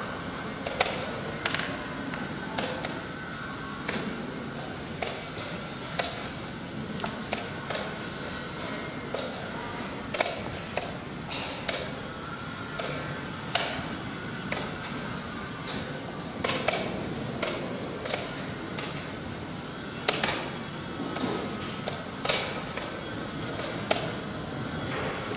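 Wooden chess pieces set down and slid on a wooden board, with the chess clock's buttons pressed after each move in a fast blitz game: a string of irregular sharp knocks and clicks, one or two a second, over steady background noise.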